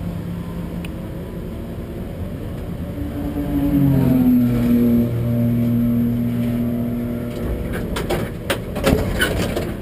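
Car engine running, rising in pitch about three and a half seconds in, holding there for a few seconds, then easing back. Several sharp knocks and clicks come near the end.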